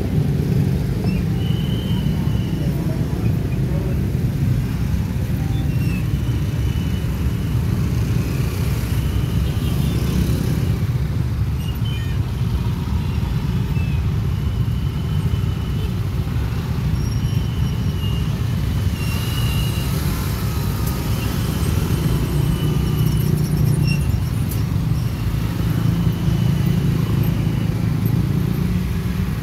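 Dense, slow motorcycle and car traffic with engines running steadily, voices mixed in, and short high-pitched tones every couple of seconds.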